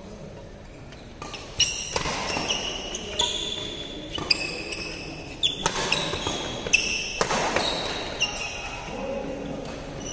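Badminton rally: rackets hitting the shuttlecock back and forth, a sharp hit every second or so from about a second in until about eight seconds, with short high squeaks of shoes on the court floor. The hits echo in a large hall.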